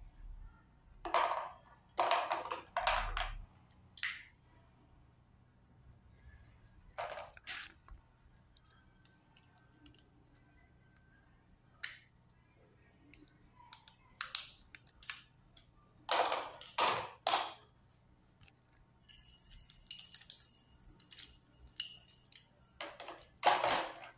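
Rolls of washi tape and other stationery handled and set down into a clear plastic compartment tray: scattered taps, clicks and rustles in separate bunches, with a cluster of light clinking ticks a few seconds before the end and the loudest clatter just before it ends.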